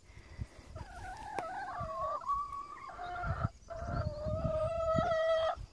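A hen giving long, drawn-out calls: a wavering one of about two seconds, a short one, then a long steady one of about two seconds.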